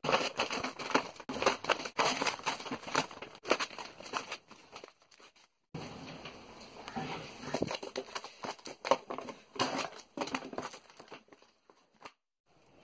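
Sheets of paper being handled, crumpled and torn: a dense, irregular crinkling and rustling, broken by a brief silence about five seconds in.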